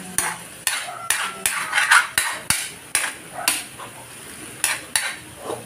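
Metal spatula scraping and knocking against a metal wok while stirring cubed meat, about a dozen irregular strokes, loudest around two seconds in.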